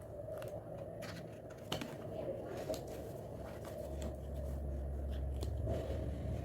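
Hands handling packaging, a run of small clicks and rustles, with a low rumble coming in after about four seconds.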